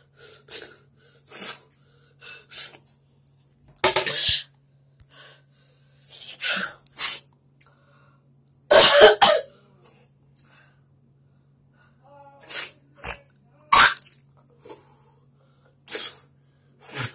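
A child coughing hard several times, loudest about 4, 9 and 14 seconds in, with short sniffs and breaths in between, from the burn of eating hot chips. A faint low hum runs underneath.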